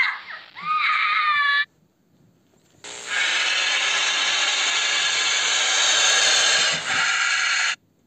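A parrot's harsh calls rising and falling in pitch for the first second and a half. After a short pause comes a cobra's hiss, one steady hiss about five seconds long that cuts off near the end.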